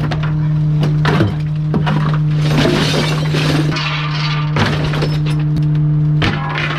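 Bulk waste truck's compactor crushing a load: a steady engine and hydraulic drone under repeated sharp cracks of breaking material, with a longer stretch of crunching and shattering about two and a half seconds in.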